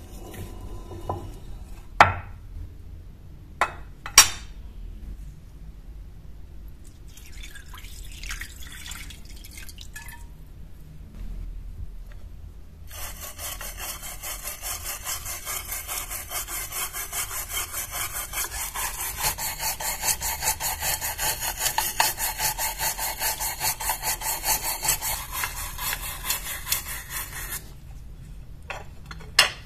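A stiff brush scrubbing a rusty knife blade under water in a glass baking dish, in rapid rhythmic back-and-forth strokes for about fifteen seconds in the second half. Before that come a few sharp knocks and some lighter scraping, and one more knock comes near the end.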